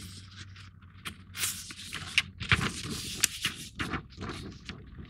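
Paper instruction sheet rustling as it is handled and turned, in several short bursts with a few sharp crackles.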